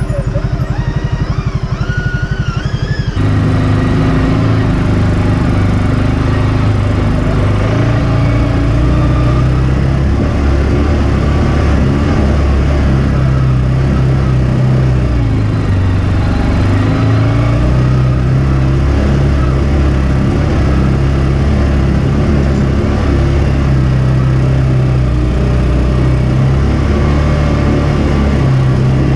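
Single-cylinder engine of a CFMOTO UForce 500 side-by-side running steadily at low trail speed, heard from on board. The sound changes abruptly about three seconds in.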